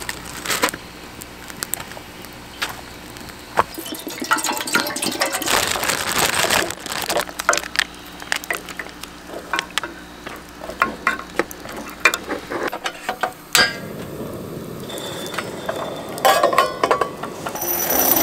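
Wooden chopsticks and utensils clink and tap against a stainless steel pan while fish-cake soup is put together, with sharp crackles from a wood campfire. Music comes in near the end.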